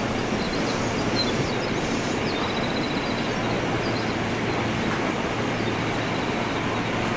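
Electric commuter train running on the tracks: a steady rolling noise with a faint low hum, and a few faint high squeaks about two to three seconds in.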